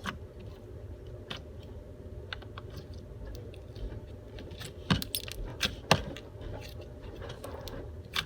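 Slime being squished and worked by hand, giving scattered small clicks and crackles, with a couple of sharper pops about five and six seconds in. A steady low hum runs underneath.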